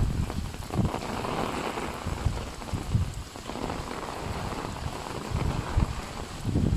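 Steady rain falling on an umbrella overhead, with a few short low thumps.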